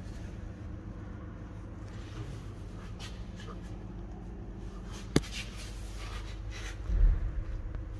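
Steady low workshop hum with faint rustling, a single sharp click about five seconds in and a short low thump about two seconds later.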